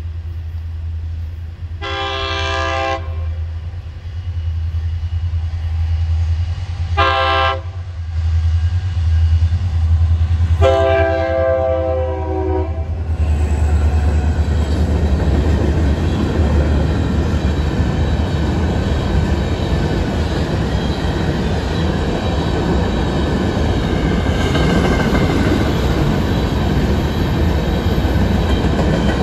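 Florida East Coast Railway diesel freight locomotive sounding its multi-chime air horn three times: a blast of about a second, a short one, then a longer one, a grade-crossing warning. From about halfway through, the locomotive and a string of loaded hopper cars rumble past close by, wheels running on the rails.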